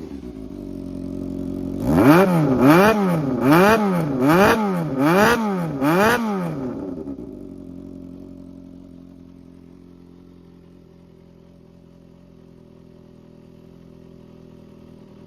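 Yamaha XJR400's air-cooled inline-four engine idling, then blipped about six times in quick succession, each rev rising and dropping straight back, before it settles to a steady, quieter idle. It runs cleanly, which the seller lists as free of abnormal noise.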